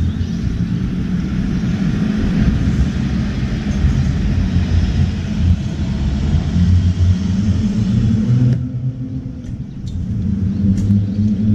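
A steady low rumble with a hiss over it. The hiss cuts off suddenly about eight and a half seconds in. Near the end come a few light ticks as a brown-eared bulbul lands on the metal seed tray and pecks at the sunflower seeds.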